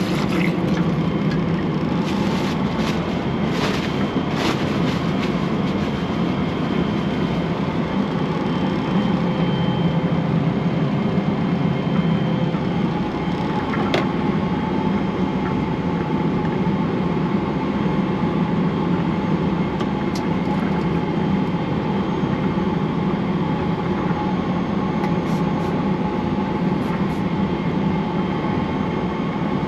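Steady in-flight cabin noise of a Boeing 777-300ER as heard in its lavatory: a constant low roar of jet engines and rushing air. Water from the basin tap splashes over hands in the first few seconds, and there is a single sharp click about halfway through.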